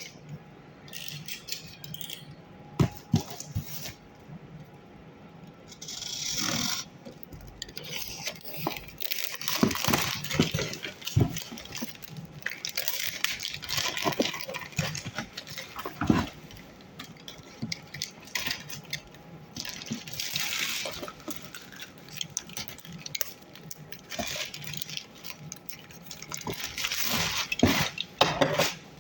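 Unboxing a pair of safety shoes: packaging rustling and crinkling in irregular spells as it is handled, with a few sharp knocks and taps in between.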